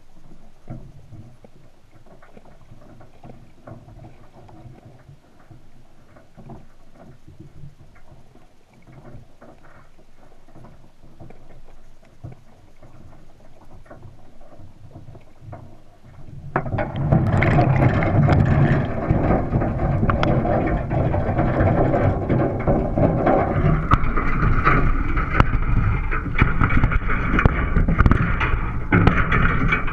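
Underwater, faint crackling with scattered ticks around a crab trap on the seabed. About halfway through, a sudden loud, steady rush of water and handling noise starts as the trap is hauled up toward the surface.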